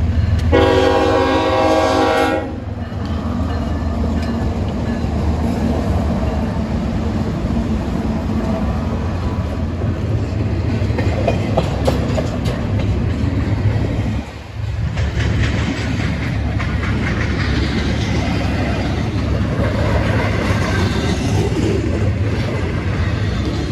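A freight train led by a pair of diesel locomotives passing: the locomotive's air horn sounds one chord of several notes for about two seconds near the start. After that comes the steady low rumble of the diesels and the clatter of wheels on the rails.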